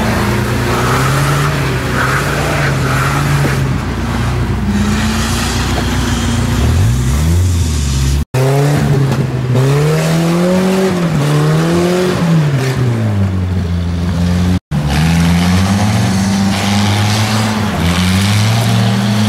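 UAZ-469 off-roaders' engines revving hard in low gear as they work through mud and tall grass, the engine pitch rising and falling again and again. The sound breaks off abruptly twice, about two-fifths and three-quarters of the way through, where one shot cuts to the next.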